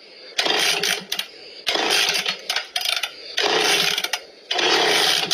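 Homelite 360 chainsaw being pull-started over and over: four pulls of the starter cord, each about a second long, and the engine does not fire.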